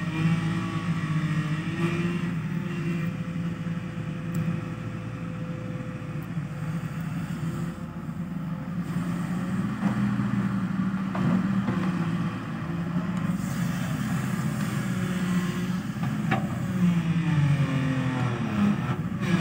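Diesel engine of a JCB tracked excavator running under working load while it digs and loads soil into a dump truck, its pitch rising and falling with the hydraulic load. A few faint short knocks come around the middle.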